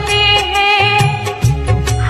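Bollywood-style song: a woman singing over a backing track with a pulsing bass beat.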